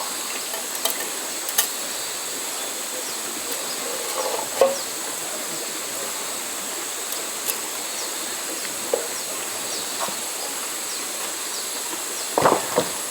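Riverside outdoor ambience: a steady hiss of flowing river water under a constant high insect drone, with a few scattered clicks and a brief louder sound near the end.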